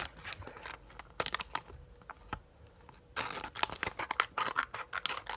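Multitool's small scissors cutting paper, with paper rustle: a few snips, a quieter pause, then a quick run of snips from about three seconds in.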